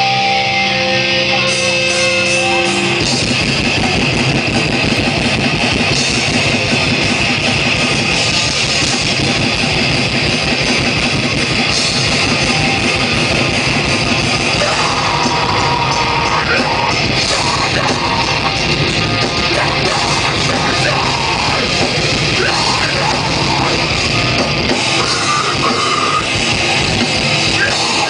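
A live heavy rock band playing loud, distorted electric guitar with drums. A held, ringing chord gives way about three seconds in to the full band at a fast, driving tempo.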